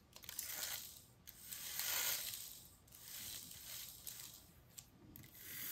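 Faint handling noises: soft rustles and a few small clicks as a 9-volt battery is pressed against the contacts of a model locomotive chassis.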